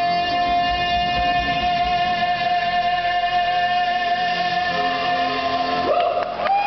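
Live concert music from a singer and band: a long high note held steadily for about six seconds, breaking into wavering turns of pitch near the end.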